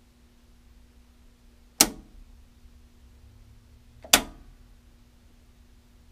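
Circuit breakers in a home electrical panel being snapped off by hand: two sharp clicks, about two seconds in and again a little over two seconds later. Under them a faint steady electrical hum comes from the panel.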